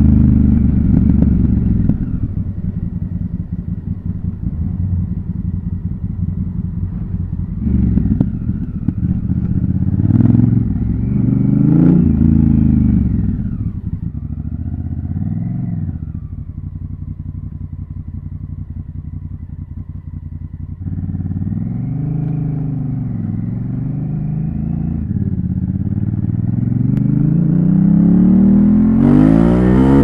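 Honda CRF1000L Africa Twin's 998 cc parallel-twin engine heard from the saddle, accelerating and easing off again and again through the gears. Its pitch rises and falls several times, with a quieter, steady stretch of low running in the middle. It revs harder near the end.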